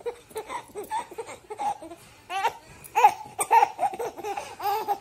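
Young infant laughing in a run of short, pitched bursts, several a second, loudest about three seconds in.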